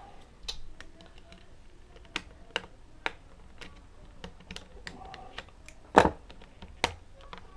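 Scattered small clicks and taps of a plastic slot car hand controller being handled and taken apart, the loudest about six seconds in.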